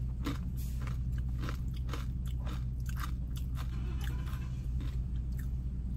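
A person chewing and biting food close to the microphone, with irregular crunches coming several times a second.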